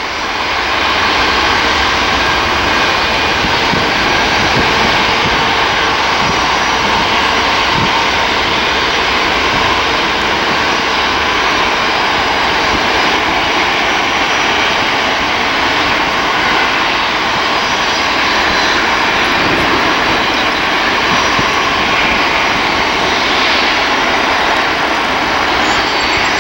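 A Boeing 757-300's Rolls-Royce RB211 turbofan engines at takeoff thrust during the takeoff roll. The jet noise is loud and steady, with a steady whine over it, and it builds to full level within the first second.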